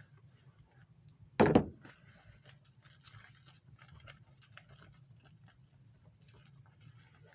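A single loud thump about one and a half seconds in, followed by faint clicks and rustles of handling over a low steady hum.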